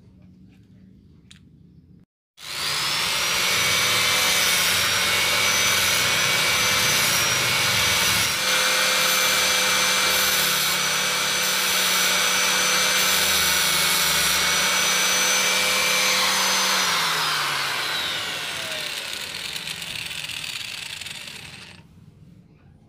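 Electric angle grinder with a sanding disc running at full speed, sanding a wooden pen handle, with a steady high whine. It comes in abruptly about two seconds in. Near the end it is switched off, and its whine slides down in pitch as the disc winds down to a stop.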